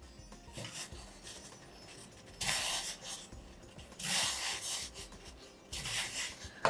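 Whole lemons dropped one at a time into a steel pot of boiling water: three short splashes a second or two apart, over a low bubbling hiss of the boil.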